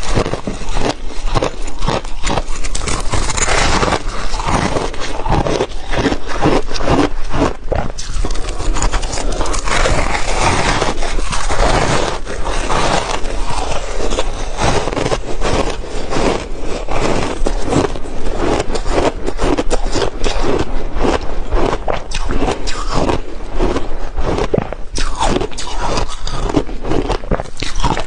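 Crushed ice being bitten and chewed close to a clip-on microphone: a dense, unbroken run of loud crackling crunches.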